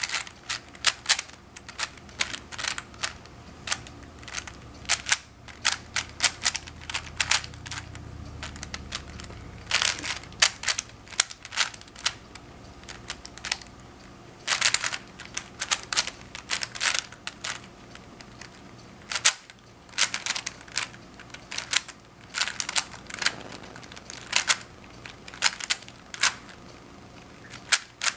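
A speed-turning Rubik's Cube being solved: its plastic layers are twisted in quick, irregular runs of sharp clicks, with short pauses between them.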